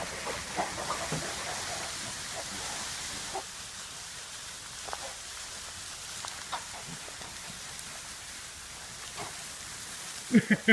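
Piglets grunting as they scamper through straw bedding: scattered soft grunts and rustling over a steady hiss, then a quick run of loud, rapid grunts and squeals about ten seconds in.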